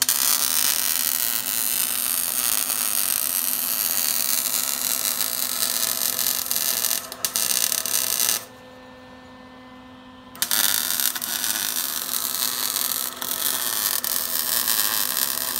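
Lincoln Electric wire-feed welder's arc crackling on the steel tubes of a Jeep roll cage, in three runs with a pause of about two seconds in the middle. A steady hum from the welder runs under it.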